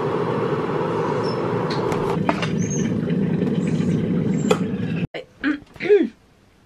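Electric kettle rumbling steadily as it heats water towards the boil, with a couple of light clicks over it; the rumble cuts off suddenly about five seconds in.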